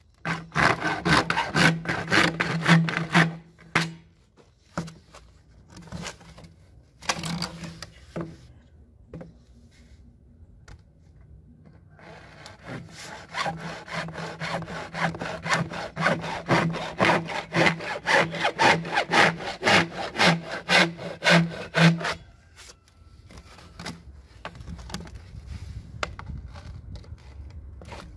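Hacksaw cutting through 4-inch PVC pipe with rapid back-and-forth strokes. It goes in spells: sawing at the start, a pause of several seconds, a long steady run of strokes from about twelve seconds in, then lighter strokes near the end.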